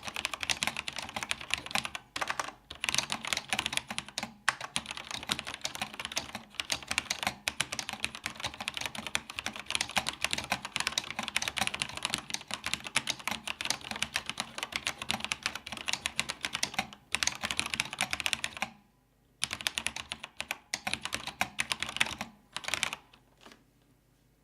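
Fast, continuous typing on a vintage Cherry G80-0561 keyboard with Cherry MX Black linear switches: a dense stream of keystroke clacks, with a few short pauses, one longer pause a little past the middle, and the typing trailing off shortly before the end.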